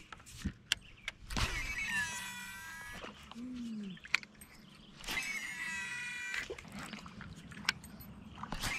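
Baitcasting fishing reel whirring in three bursts of a second or two, each a high whine that slides in pitch; the first starts with a knock.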